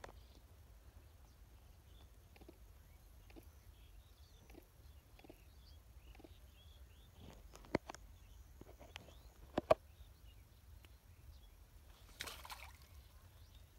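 Faint outdoor ambience with a steady low rumble and scattered light clicks, two sharper clicks about two seconds apart past the middle, and a brief burst of rustling near the end.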